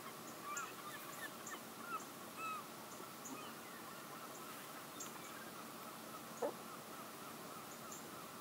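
A flock of birds calling in flight, many short calls in the first few seconds that thin out as the flock passes, with one louder short sound about six seconds in, over a steady outdoor hiss.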